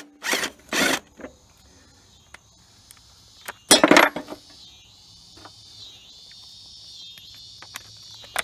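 Impact wrench run in two short bursts, near the start and about four seconds in, loosening a mower blade's center bolt, with a few light metal clicks between. Crickets chirp steadily throughout, growing more prominent in the second half.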